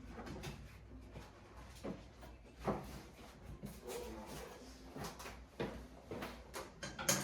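Soft, scattered knocks and clicks of handling on a chiropractic table, with a sharper click just before the end.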